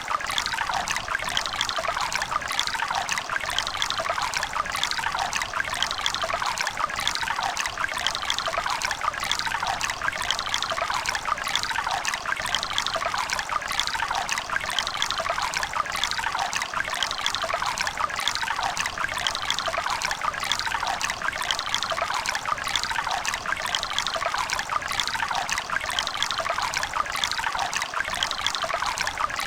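River water running steadily over rocks, a continuous babbling and trickling with no breaks.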